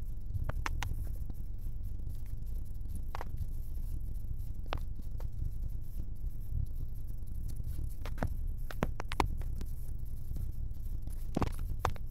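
Scania K410 double-decker bus running with a steady low rumble, heard from inside the cab. Scattered sharp clicks and rattles come through, in small clusters around a second in, near the middle and near the end.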